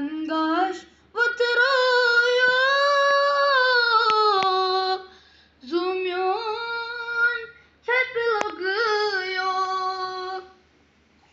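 A single high voice singing a naat, unaccompanied, in long held, wavering phrases with short pauses between them.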